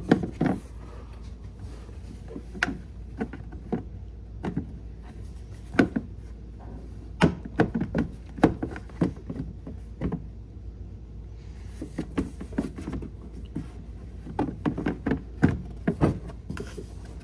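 Irregular plastic knocks, clicks and rubbing as a ride-on toy car's hard plastic windshield is pressed and worked against the body. Its pegs are slightly wider than the holes they are being forced into.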